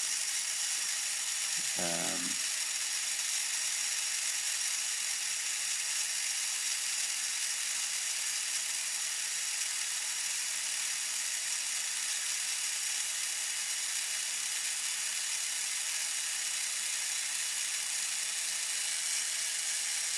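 Handheld 3D printing pen's small feed motor whirring steadily as it pushes filament through the hot nozzle, running continuously without stalling.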